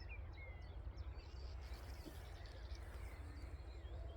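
Faint birdsong: several small birds chirping and calling in short, quick notes, over a low steady rumble.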